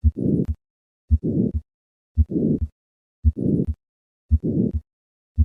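Heartbeat heard through a stethoscope with a harsh systolic murmur, the murmur of hypertrophic cardiomyopathy caused by obstruction of left ventricular outflow. There are five beats a little over a second apart, each a low thump followed by a rough noise that runs up to a second, shorter thump.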